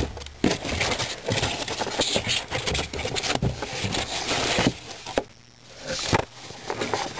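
Foam packing inserts being pulled out of a cardboard box: a run of scraping, rubbing and small knocks, dipping quieter about five seconds in.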